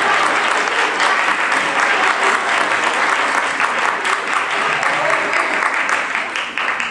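A large group of people applauding, a dense steady clatter of many hands clapping that tapers off near the end.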